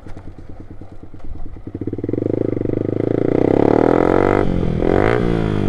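Loud-exhaust motorcycle being ridden, its engine note rising as it accelerates, then changing pitch abruptly about four and a half seconds in.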